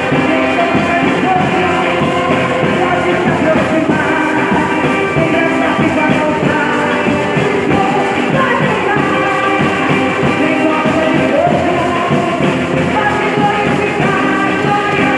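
Church orchestra playing, several instruments holding sustained notes and moving between them in a continuous ensemble passage.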